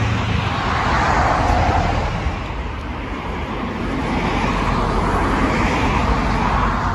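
Road traffic: cars going by, their tyre and engine noise swelling twice, about a second in and again near the end, over a steady low rumble.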